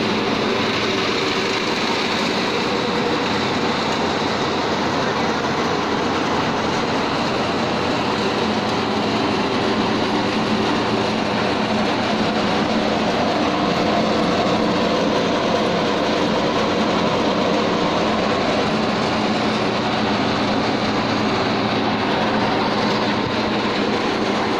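Belt-driven three-mouth gear chaff cutter running on its electric motor, a loud, steady mechanical noise that holds even throughout.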